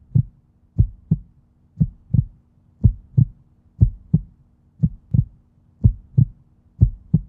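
Heartbeat sound effect: paired low thumps, lub-dub, about once a second, over a faint steady low drone.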